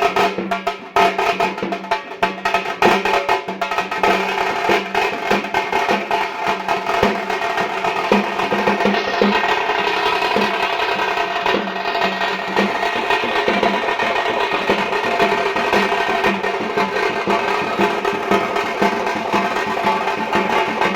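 Live band music: fast, dense drumming over a sustained melody line, the drumming heaviest in the first few seconds.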